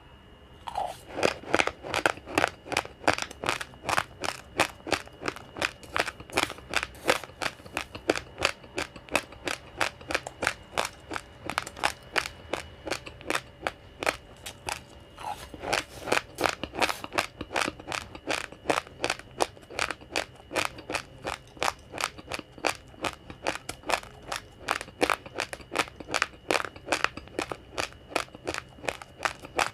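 Raw uncooked rice grains being chewed: sharp crunches about three times a second in a steady chewing rhythm, starting about half a second in.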